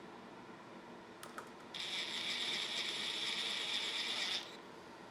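A ratcheting hand tool spun quickly, a fast run of clicking that lasts about two and a half seconds, preceded by a couple of single clicks.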